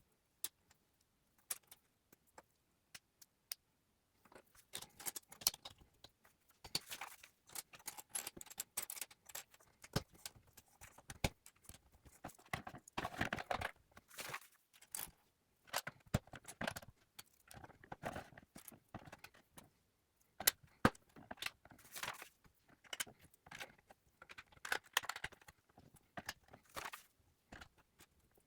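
Small plastic LEGO pieces clattering and clicking as they are handled, with rustling bursts in between: irregular clicks and rattles that grow busy after about four seconds.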